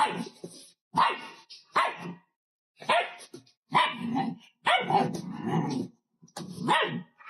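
A dog barking repeatedly, about seven barks roughly a second apart, the one about five seconds in longer and drawn out.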